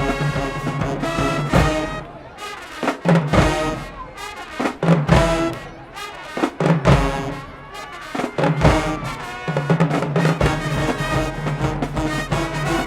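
Marching band playing: brass section holding chords, breaking about two seconds in to a stretch of short brass stabs and drum hits, then back to held brass chords with drums about two-thirds of the way through.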